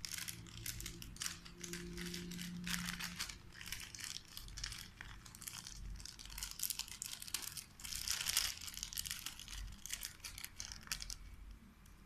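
Alexandrine parakeets biting and tugging at a foil-lined plastic snack packet: rapid, irregular crinkling and crackling of the wrapper, dying down near the end.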